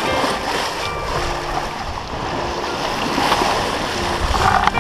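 Sea water rushing and splashing along a sailing ship's hull as she makes way through choppy water, with a louder splash near the end. Background music with held notes plays over it.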